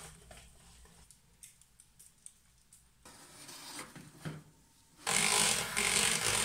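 Electric hand mixer running steadily as it beats cream-cheese frosting in a ceramic bowl, starting suddenly about five seconds in. Before it come quieter scraping and a crinkling rustle of aluminium foil.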